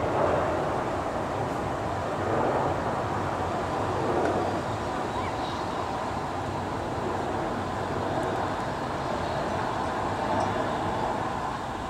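Jet engine noise of a Boeing 737-500 airliner passing overhead on approach: a steady rushing sound with a faint high hum, swelling briefly a few times in the first seconds.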